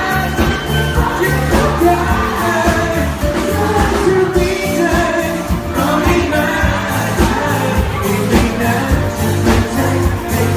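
Live pop band playing with a male vocalist singing over a steady bass line.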